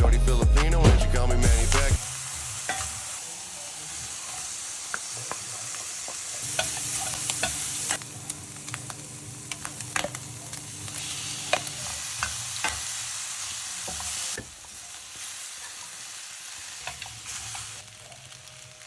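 Food frying in a hot pan with a steady sizzle and a utensil clicking and scraping against the pan as it is stirred, after about two seconds of music at the start; the sizzle drops lower at a couple of points.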